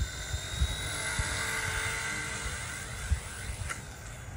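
E129 micro RC helicopter's electric rotor motor whining steadily in flight, its pitch wavering slightly and fading near the end, with wind buffeting the microphone.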